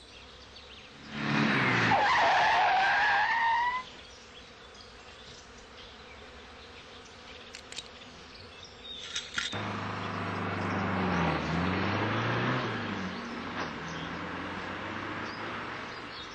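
Two cars passing on a road. The first goes by about a second in with a rising whine and is gone within a few seconds. The second comes in near the ten-second mark with a steady engine note that dips and rises in pitch as it passes.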